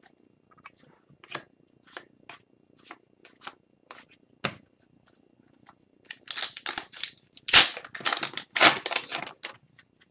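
Trading cards slid off a stack one at a time, a soft click roughly every half second. About six seconds in comes a louder run of crinkling as a foil trading-card pack wrapper is torn open.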